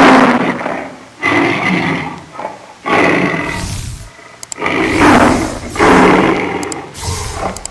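A large animal giving a series of loud, harsh roaring calls, about six of them, each starting abruptly and tailing off.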